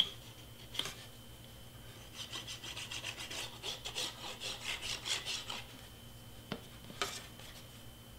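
Fine nozzle of a craft glue bottle scraping along a cardstock tab as a bead of glue is laid, a quick rhythmic rasping for a few seconds. A few light taps come before it and after it; the last, near the end, is the bottle being set down on the cutting mat.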